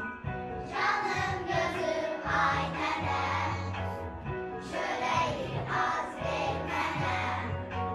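Children's choir singing a song in Azerbaijani in unison, over instrumental accompaniment with a steady, repeating bass line.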